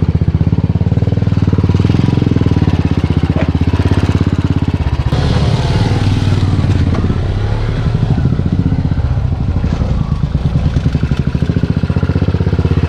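Off-road jeep's engine running under load on a steep climb, a steady pulsing firing rhythm, with a short burst of hiss about five seconds in.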